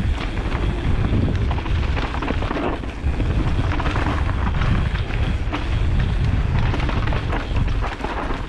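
Trail mountain bike descending dry, dusty dirt singletrack at speed: constant wind buffeting on the body-mounted camera's microphone, tyres rolling over dirt and rocks, and frequent knocks and rattles from the bike over bumps.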